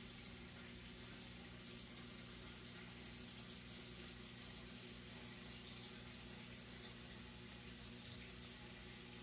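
Turtle-tank filter running: a steady trickle of moving water over a low, steady pump hum.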